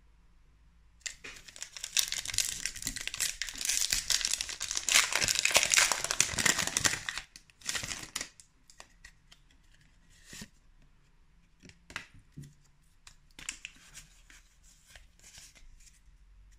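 Foil wrapper of a Pokémon booster pack crinkling and tearing as it is ripped open by hand, for about six seconds. After that come short, soft, scattered sounds of the trading cards being slid and handled.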